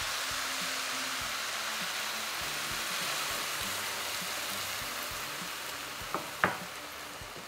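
Chicken and vegetables sizzling in a frying pan, the sizzle slowly dying down over the second half as milk is poured in. Two sharp taps about six seconds in, the second louder.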